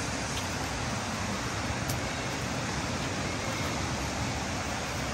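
Steady, even noise of river water flowing.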